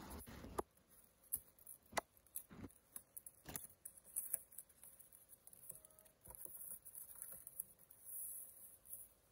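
A white paperboard box being opened by hand: a short rustle at the start, then scattered sharp clicks and crinkles as the flaps are pried up and folded open.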